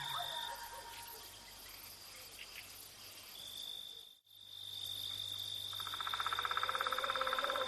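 Night ambience of crickets: a steady high-pitched trill that cuts out briefly about four seconds in. A louder, lower trill pulsing rapidly joins near the end.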